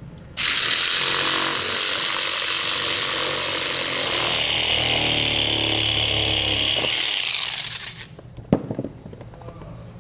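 Small cordless reciprocating saw cutting through a hard black plastic bumper trim piece. It starts about half a second in, runs steadily for about seven seconds, then stops, and a single sharp knock follows.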